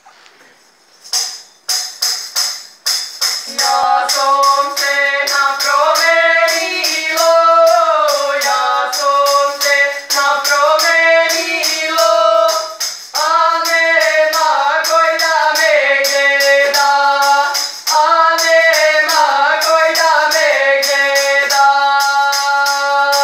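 Tambourine beaten and shaken in a steady beat, joined about three and a half seconds in by two voices singing a folk song together, the lower voice holding long, level notes under the moving upper voice.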